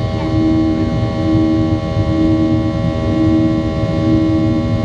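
Cabin noise inside a Boeing 737-800 climbing after takeoff: the steady drone of its CFM56 turbofan engines and airflow, with a low tone that swells and fades about once a second.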